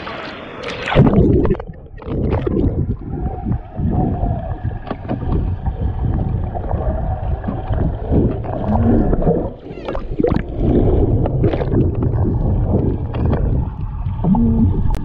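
A splash about a second in, then the muffled rumble of a swimming pool heard underwater: water rushing and bubbles gurgling past the camera's housed microphone as a swimmer moves, with scattered clicks and knocks.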